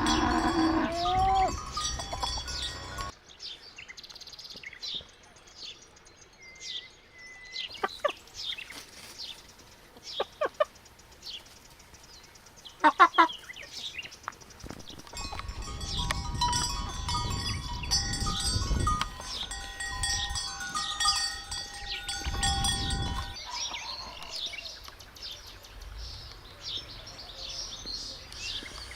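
Bells on livestock ringing and clanking, with scattered knocks and short farm-animal calls.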